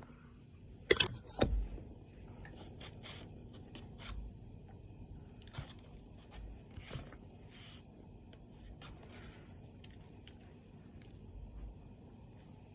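Food packaging being handled and opened: crinkling and tearing of wrapping in short bursts, with two sharp knocks about a second in.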